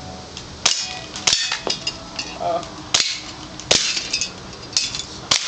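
Six sharp air-gun cracks, irregularly spaced about a second apart. The first two are followed by a brief metallic ring, as pellets strike the tin cans.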